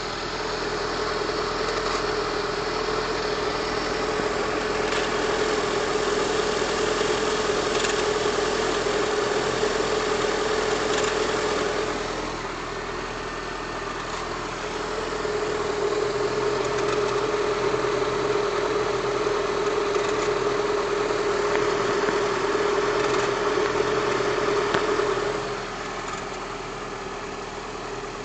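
VAZ-2112 engine idling cold, with a steady squeak over it: the cold-engine squeak. The squeak fades out about 12 seconds in, comes back a few seconds later, then stops near the end while the engine keeps running.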